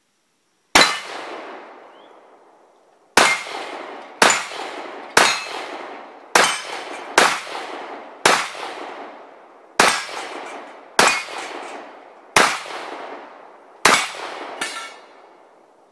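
Semi-automatic pistol fired about a dozen times, each shot a sharp crack followed by a long ringing tail that dies away over a second or so. After the first shot there is a pause of about two seconds, then the shots come at a steady pace of roughly one a second.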